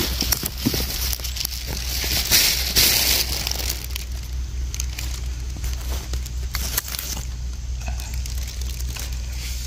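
Crackling and rustling of dry pine needles and twigs on the forest floor, stepped on and brushed close to the microphone. Loudest about two to three seconds in, then quieter.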